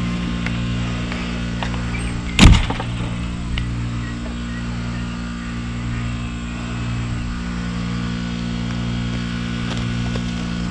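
A steady low motor hum, with one loud knock about two and a half seconds in.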